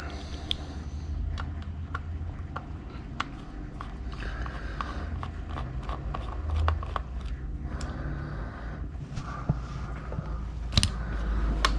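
Scattered light clicks and scrapes of a screwdriver and metal computer parts being handled as a screw is taken out of an old PC chassis.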